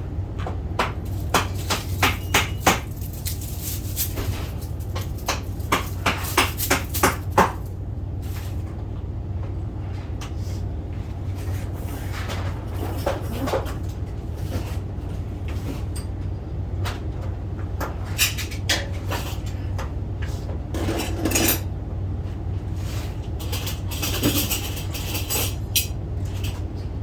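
Metal parts and tools clinking and knocking irregularly, in quick runs of sharp strikes a few seconds apart, during garage door hardware assembly. A steady low hum runs underneath.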